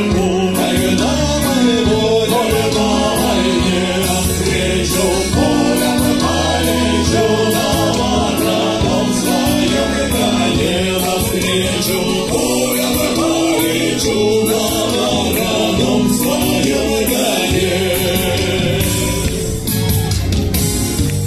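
A choir singing a song with instrumental accompaniment, loud and unbroken.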